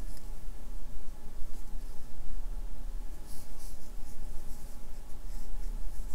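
Crochet hook working yarn through stitches close to the microphone: soft, irregular scratchy rustling of hook and yarn, over a steady low hum.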